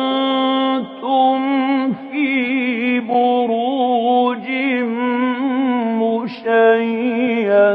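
A man reciting the Quran in a melodic chanted style, drawing out long held notes whose pitch wavers and turns in ornaments, with a few short pauses for breath.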